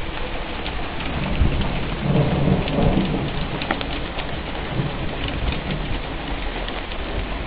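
Rain falling steadily in a thunderstorm, with a low rumble of thunder swelling about two seconds in and dying away a couple of seconds later.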